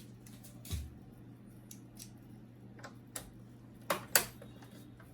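Light clicks and taps of a screwdriver undoing the screws at the back of an HP LaserJet P1102 printer, with a dull knock just under a second in and two sharp clicks, the loudest, about four seconds in.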